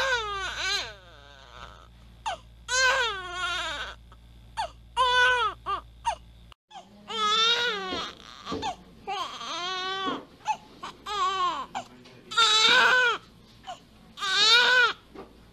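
Infant crying in repeated bouts, each about a second long with a wavering, falling pitch, broken by short catches of breath. A low hum under the first half stops about six and a half seconds in.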